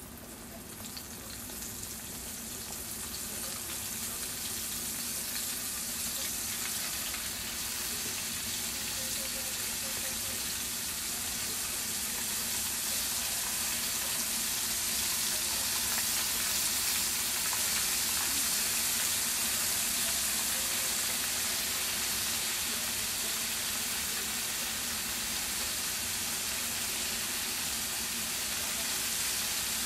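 Chicken strips deep-frying in hot oil in a pan, a steady dense sizzle. It grows louder over the first several seconds as more strips are dropped in.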